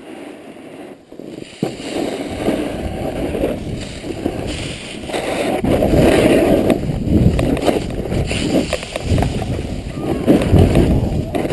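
Snowboard sliding and scraping over snow at speed, with wind rushing over the helmet camera's microphone; the noise jumps up about two seconds in as the ride gets going and stays loud and uneven.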